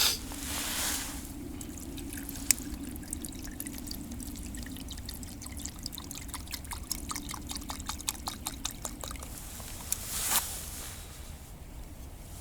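Water pouring into a cooking pot, a steady trickle with many small splashes and drips, stopping about nine seconds in; a short rustle of handling follows near the end.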